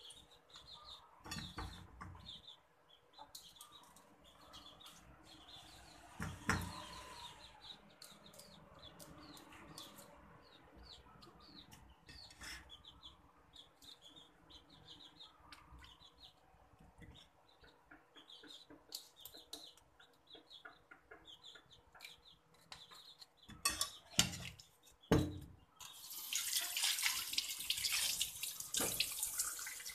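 A knife scrapes the scales off small white fish in short, repeated strokes, with two sharp knocks near the end. In the last few seconds a kitchen tap runs water onto a plate in a stainless steel sink.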